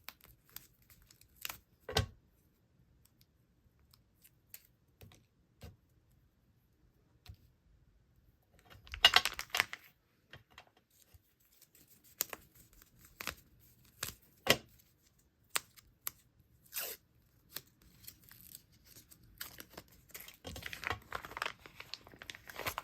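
Stamp images and label stickers being peeled from their backing sheets and handled: scattered small clicks and taps, with two longer rasping peels, one about nine seconds in and one near the end.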